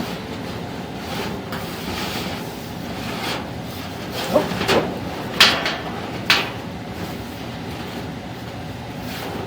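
Duct inspection camera being pushed along sheet-metal ductwork: a steady rumbling scrape, with a few sharp knocks and short squeaky scrapes of metal about halfway through.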